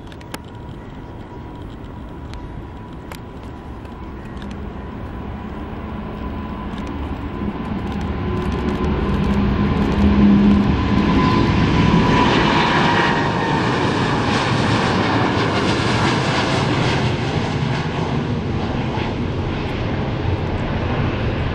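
Boeing 787-8 Dreamliner's twin GEnx turbofans at takeoff thrust, growing louder as the jet comes down the runway and lifts off about ten seconds in. A high fan whine drops in pitch as the jet passes, and the engine roar then holds steady as it climbs away.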